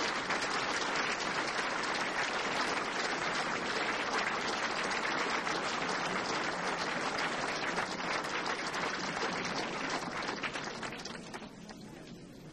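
Crowd of guests applauding, many hands clapping together, dying away near the end.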